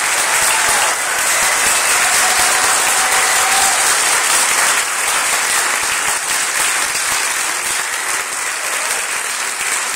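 Audience applauding steadily, easing off a little in the second half.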